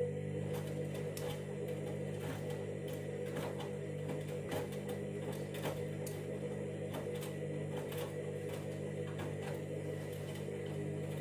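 Candy washing machine's motor turning the drum during its KG detector load-sensing stage: a steady motor hum with irregular light clicks and knocks from the drum and the small load.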